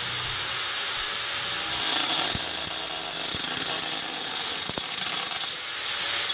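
Small electric cutting machine with a stone-cutting abrasive blade grinding steadily into the workpiece, a loud, harsh, unbroken hiss with a thin high whine running through it.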